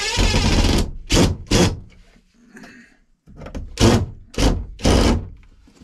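Cordless drill-driver backing out the screws of a wooden access panel: a run of a little under a second at the start, then short bursts, two together and later three more.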